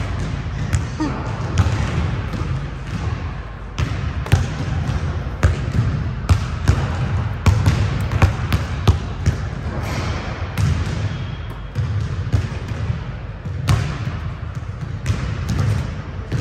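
Basketball bouncing on a gym court in irregular dribbles and bounces, with voices in the background.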